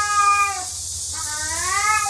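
Domestic cat yowling: long, drawn-out meows that rise and fall in pitch. One ends a little after half a second in, and the next begins just after a second in.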